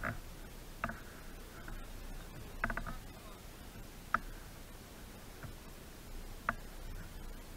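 Airsoft guns firing single shots: a handful of sharp pops spaced irregularly over a faint steady background, with three or four in quick succession near the middle.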